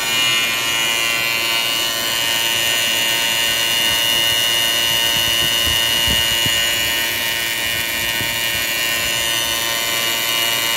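Motor-driven trimming wheel spinning against the bristles of a rotating nylon brush roller on a lathe, trimming them even. The sound is a steady high-pitched machine whine over a dense hiss.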